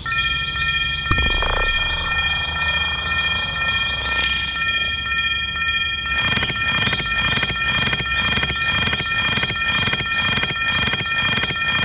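Railway level-crossing warning bell sounding (the Japanese 'kan-kan'): a steady ringing tone, joined about six seconds in by a quick repeating strike, two to three a second.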